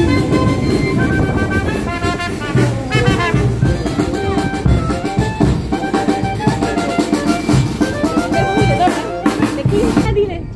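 Small street band playing as it walks past: a wind instrument carries the melody over bass drum and snare drum beats.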